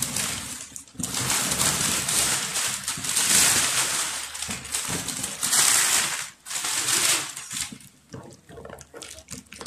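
Plastic wrapping on a cardboard box crinkling and rustling as it is cut and pulled off, in long stretches for the first several seconds, then a few short crackles and rustles near the end.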